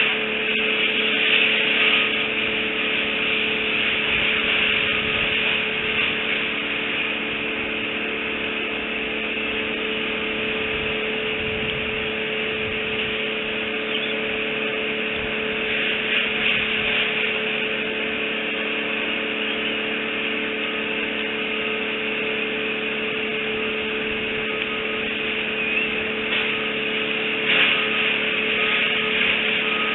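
Steady background hum with hiss picked up by an outdoor nest-cam microphone, with a few short faint high tones near the end.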